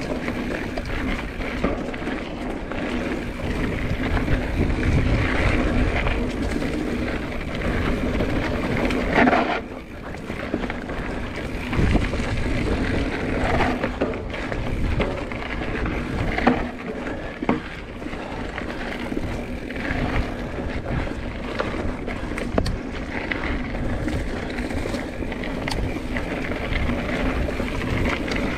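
Mountain bike ridden along a singletrack trail: tyres rolling over dirt and the bike rattling, with sharper knocks over bumps, and wind rushing over the microphone.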